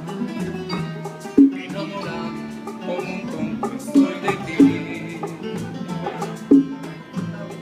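Small live acoustic band playing an instrumental intro: acoustic guitar and other plucked strings over a steady rhythm, with sharp accented notes every second or two.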